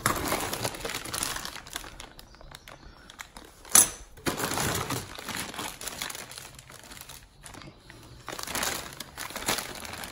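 Brown packing paper and plastic bags rustling and crinkling as hands rummage through a bag of plumbing fittings, in several bouts, with one sharp knock a little under four seconds in.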